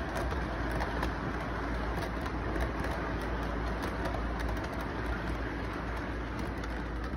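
Model freight train running on its track as its cars roll past, a steady rumble with frequent light clicks from the wheels and track.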